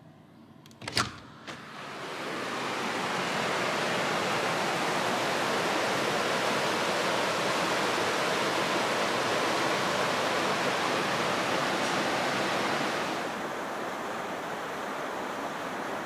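A sharp click about a second in, then the steady rush of a fast-flowing mountain stream swelling in and holding, a little softer near the end.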